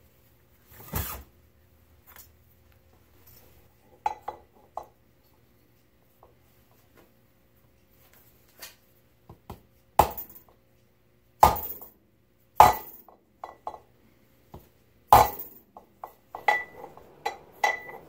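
Irregular metal clinks and knocks as tools and aluminium parts of a 6-71 blower are handled on a steel workbench during rotor-to-case clearance setting, with several sharper knocks in the second half.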